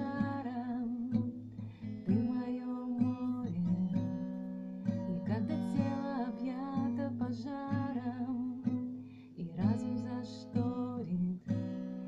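A woman singing while strumming chords on an acoustic guitar.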